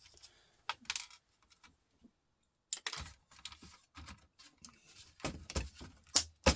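Irregular clicks and knocks of laptop parts being handled and taken apart by hand. A couple of light clicks, a short pause, then a busier run of clicking and knocking that gets louder near the end.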